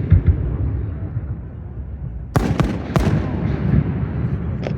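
Large fireworks display: aerial shells booming with a continuous low rumble, and a quick run of sharp cracks about halfway through, then another just before the end.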